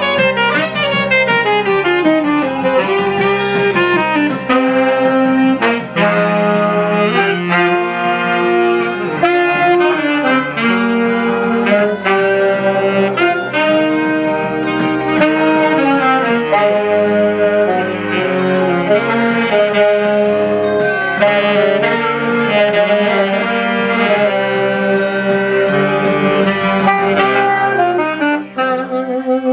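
A saxophone playing a flowing melodic line in a live jam, over band accompaniment with a steady beat.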